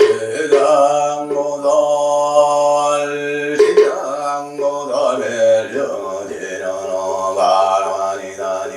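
A man chanting a Buddhist mantra in long, drawn-out held tones, the pitch stepping a few times, over a low steady hum.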